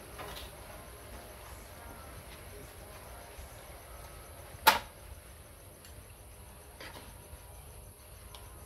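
Low steady background with a few faint taps, and one sharp clink a little under five seconds in: a metal ladle knocking against cookware while soup is served from a wok into a ceramic bowl.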